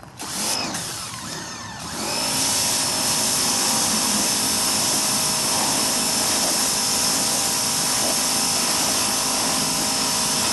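Pressure washer running, its motor whine steady under the hiss of the water jet as it sprays wooden garden tables. It settles into a steady run about two seconds in and cuts off abruptly at the end.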